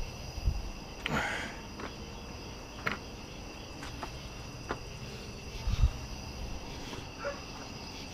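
Insects trilling steadily in high tones, with a few sharp clicks and a low thump about six seconds in from hands working a license plate light lens and bulb.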